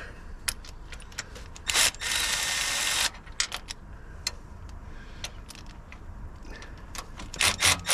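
Cordless power tool run in a short spin of about a second on a bolt, among scattered clicks and knocks of tools on metal.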